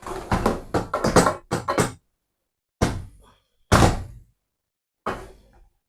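Serving utensil knocking and clattering against a pot and plate while food is dished up: a quick run of clicks and clatters, then three separate knocks.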